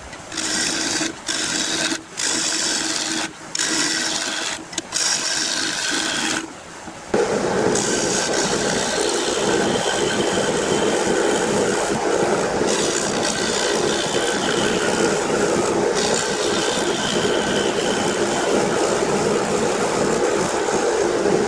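Thompson bowl gouge hollowing the inside of a spinning spalted oak bowl on a wood lathe: a rough scraping cut. In the first six seconds it comes in short cuts with brief breaks, then runs as one steady cut. The oak is partly punky, and the gouge still tears out some fibres.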